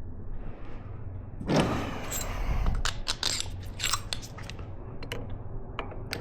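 Small metal hardware being handled: a thud or scrape about a second and a half in, then a run of short clicks and clinks.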